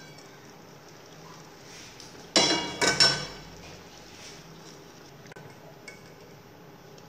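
A steel ladle knocks against a metal cooking pot twice in quick succession about two and a half seconds in, each knock ringing briefly, as cracked wheat is stirred into the chicken and masala. A faint steady hum runs beneath.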